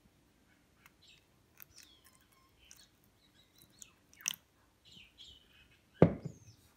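Vinegar splashing as it is poured from a glass bottle into a plastic tub over a small rusty steel plate, against birds chirping. Near the end comes a single sharp thud, the loudest sound.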